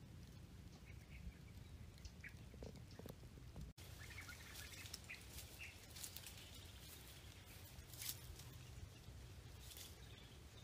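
Quiet outdoor ambience: a few faint bird chirps, and light rustling and crackling of grass and dry leaves underfoot and under hand.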